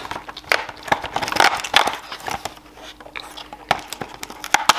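Irregular crackling and crinkling of thin cardboard as fingers pry open the perforated doors of an M&M's advent calendar.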